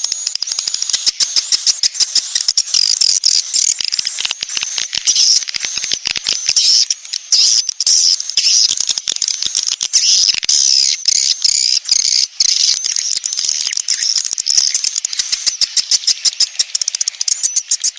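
A dense, continuous chorus of swiftlet chirps and rapid twittering clicks, high-pitched, with many pulses a second. It is a swiftlet lure call of the 'sedot anakan' kind, played in swiftlet houses to draw young birds in.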